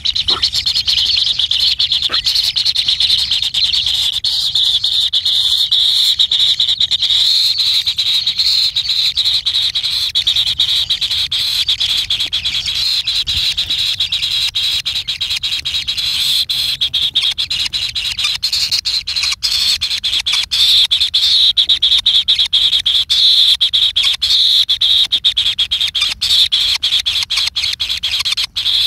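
A steady, dense chorus of high-pitched animal calls with fast, fine clicking.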